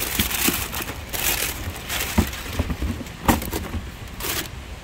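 Tissue paper crinkling and rustling in a cardboard shoebox as sneakers are pulled out, in repeated bursts with a couple of sharp knocks against the box.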